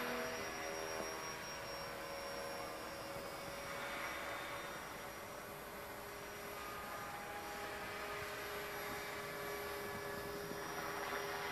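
Blade 450 X electric RC helicopter in flight: its brushless motor and spinning rotor blades make a steady whine and hum, shifting a little in pitch as it manoeuvres.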